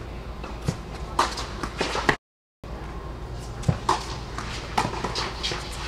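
Tennis ball being struck by rackets and bouncing on an indoor hard court: several sharp pops, a second or so apart, echoing in a large hall. The sound cuts out for a moment about two seconds in.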